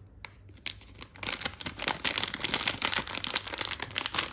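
Packaging crinkling and crackling as it is handled, a dense run of quick crackles starting about a second in.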